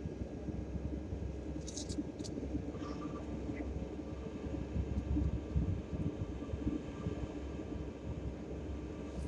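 Steady low rumble and hiss of background noise, with two or three brief, faint high scratches about two seconds in.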